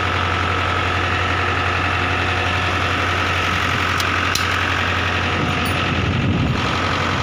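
Diesel tractor engine idling steadily, with a brief heavier rumble about six seconds in.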